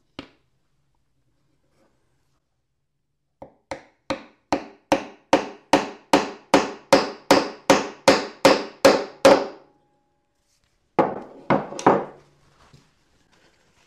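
Claw hammer driving a glued square wooden peg into a round hole in a white oak board. A run of about sixteen steady blows, about two and a half a second, is followed by two more blows near the end.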